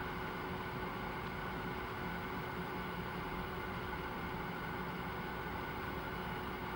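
Steady mechanical hum under an even hiss, with a constant humming tone; no separate raindrop taps stand out.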